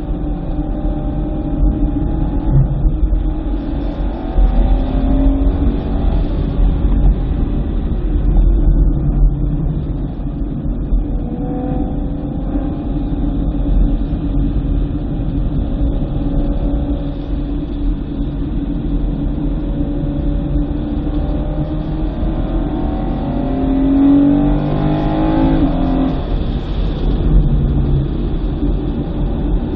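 2009 BMW M3's V8 engine under load, its pitch climbing several times as it revs up through the gears, over a steady low rumble.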